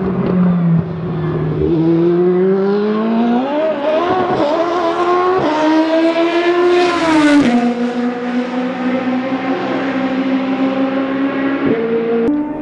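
Toyota TS030 Hybrid LMP1 prototype's 3.4-litre V8 accelerating through the gears, its pitch climbing in steps with drops at each upshift. It is loudest as the car passes close about seven seconds in, then the pitch falls sharply and the engine note holds steadier as it draws away.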